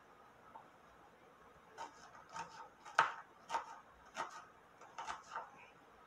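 A knife chopping garlic on a plastic cutting board: a run of sharp taps, about two a second, starting about two seconds in, the loudest about three seconds in.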